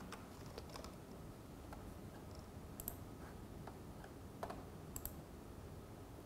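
Faint, scattered clicks of a computer keyboard and mouse: a handful of single keystrokes and clicks at irregular intervals over steady room noise.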